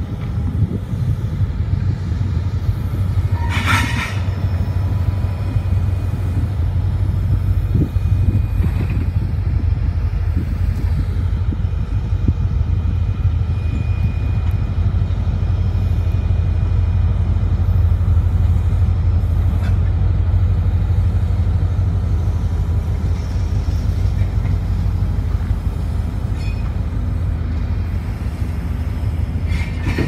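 Freight train of gondola cars rolling past, a steady low rumble of wheels on rail that swells a little midway, with wind on the microphone. Two brief, sharper high-pitched sounds stand out, about four seconds in and again at the end.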